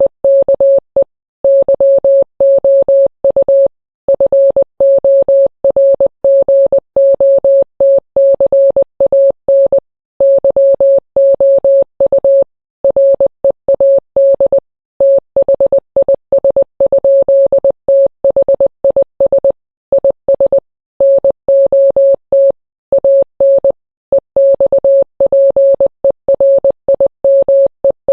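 Morse code sent as a single steady mid-pitched beep, keyed on and off in short and long pulses (dots and dashes) with brief gaps between characters.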